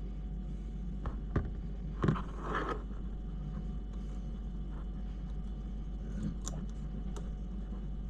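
Small clicks and a knock, then a short scraping rattle, as small plastic and metal RC crawler parts and screws are handled and fitted, with a few light ticks later on; a steady low hum runs underneath.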